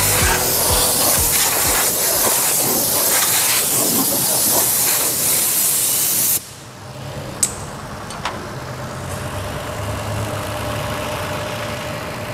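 A loud, steady hiss that cuts off abruptly about six seconds in. It is followed by the low, even hum of the 2022 Toyota Avalon's engine idling, with two sharp clicks. The car has a cylinder 5 misfire code and a rough idle.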